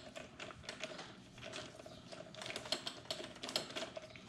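Socket ratchet clicking in quick, uneven runs as it backs out a 10 mm bolt on the throttle cable bracket. The clicking is densest in the second half.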